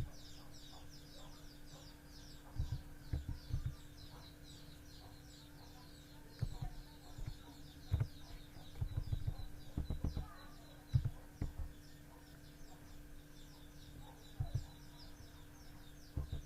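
Faint chicken clucks and birds chirping in the background, with scattered soft knocks from typing on a computer keyboard as a reference number is entered.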